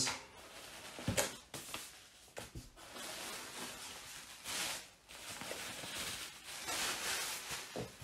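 Large paper plan sheets rustling as they are handled and lifted out of a cardboard box, with a couple of soft knocks in the first few seconds.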